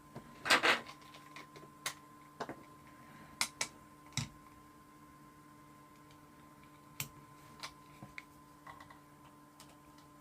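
Scattered small clicks and taps of parts and tools being handled on a workbench, with a short rattling clatter about half a second in, over a faint steady electrical hum.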